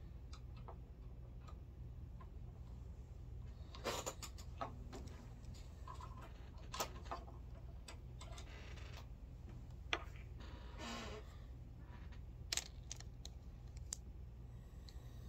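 Scattered small clicks and knocks of brass cartridge cases and metal reloading tools being handled at a bench press, with a couple of brief rustles, over a steady low hum.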